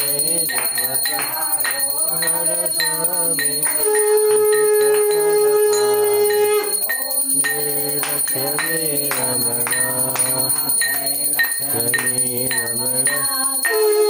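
Hindu devotional aarti: voices singing to a steady beat of struck percussion, with a bell ringing throughout. A long held note sounds about four seconds in.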